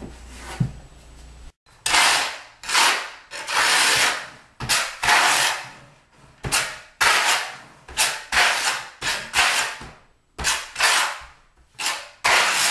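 A steel trowel scraping thin-set mortar across the waffle back of a porcelain tile in quick repeated strokes, about one or two a second: the tile is being back-buttered. The first second and a half holds only a low hum and a single knock.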